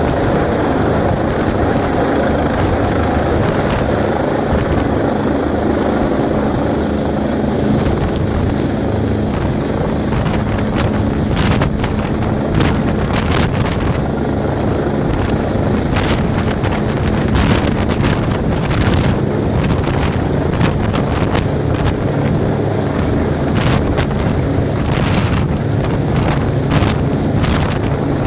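Helicopter descending low overhead to land, its rotor and engine noise loud and steady, with rotor downwash buffeting the microphone in gusts from about a third of the way in.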